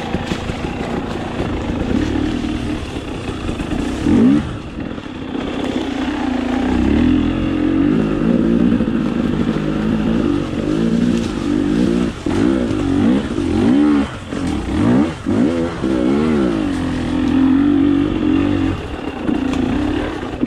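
KTM enduro motorcycle engine riding off-road, the revs rising and falling with short bursts of throttle. In the second half the pitch swings up and down quickly several times in a row.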